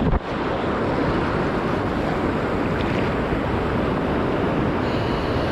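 Sea surf and wind buffeting the microphone: a steady, even rush of noise.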